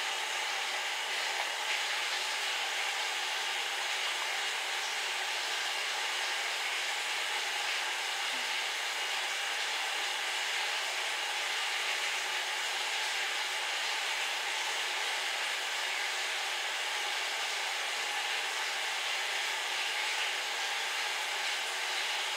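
A steady, even hiss, like rushing air, with no crunching or other distinct sounds in it.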